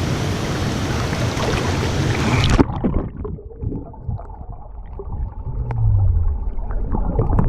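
Rushing water from a waterfall, loud and full. About two and a half seconds in it cuts off abruptly to a muffled, low gurgling rumble with a few small knocks.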